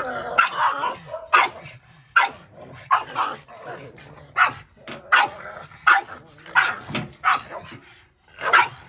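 A pug barking over and over, roughly one bark a second, with a short pause near the end.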